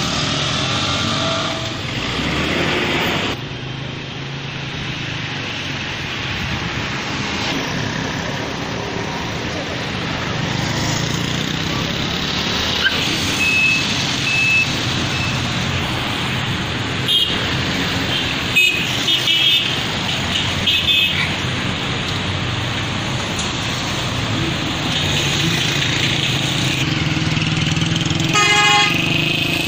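Busy road traffic noise, with vehicle horns tooting in short bursts through the middle and one longer horn blast near the end.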